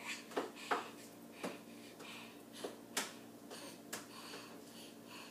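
Scattered light clicks and knocks, about seven of them at uneven intervals, from a plush toy rocking horse's wooden frame and handle as a toddler handles and rocks it.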